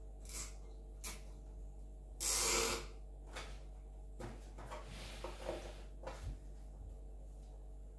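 Hands working inside a PC case: two light clicks, then a short loud rasping rub a little after two seconds, then scattered clicks and rustling of parts and cables.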